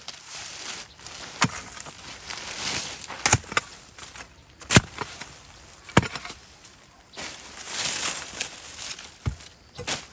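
A hoe chopping into red soil and banana roots: about six sharp strikes spaced irregularly a second or more apart, with scraping and rustling of loose soil and dry banana leaves between them, as a banana sucker is dug out root and all.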